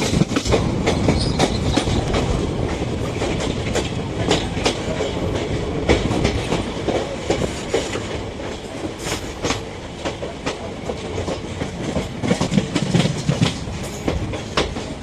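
Passenger train running along the track: a steady rumble with wheels clattering irregularly over rail joints.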